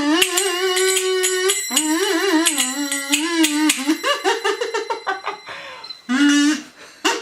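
Homemade one-man-band jam: a buzzy, kazoo-like melody wobbling and sliding in pitch, over quick clicking and clattering percussion, with a small bell or cymbal ringing. The melody breaks off briefly near the end.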